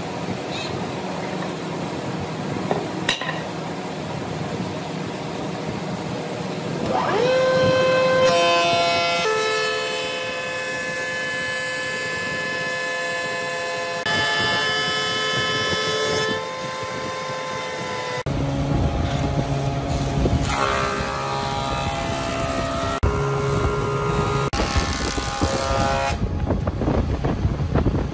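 Wood planer cutting thick timber blocks: a steady machine whine with strong pitched tones. About seven seconds in the pitch climbs and then holds steady. A little past halfway the tone shifts lower and a deeper rumble joins it.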